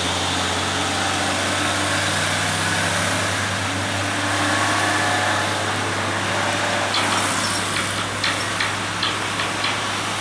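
Road traffic on a steep hill climb: a loaded truck's diesel engine running under load as a van and cars pass close by, over a steady low drone. There is a scatter of light clicks in the latter part.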